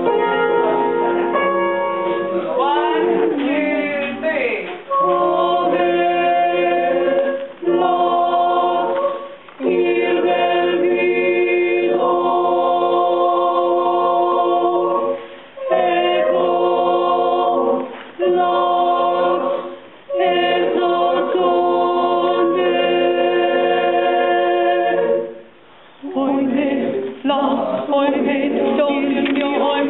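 High school madrigal choir singing a cappella: many voices holding sustained chords in phrases of a few seconds, each broken by a short pause.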